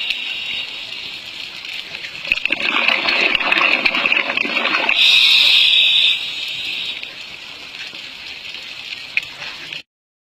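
Underwater water noise: a hissing rush that swells for a few seconds, then weakens, and cuts off suddenly near the end.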